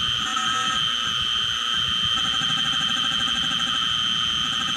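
Small CNC mill's spindle running with a steady high whine as the end mill cuts a white Delrin block, over a rough, shifting noise from the cut.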